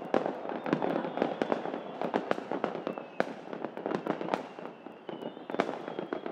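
Many fireworks going off at once, a dense, irregular run of sharp bangs and pops several times a second over a continuous crackling rumble.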